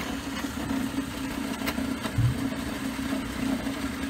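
Drill press motor running steadily with a two-inch hole saw chucked, a constant hum, with one low thump about two seconds in.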